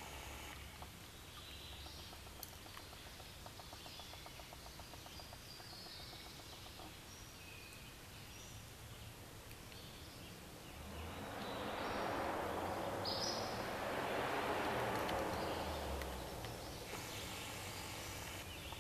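Streamside ambience: birds singing in short high calls over a steady background hiss. About eleven seconds in, a louder rush of noise swells and fades over about five seconds.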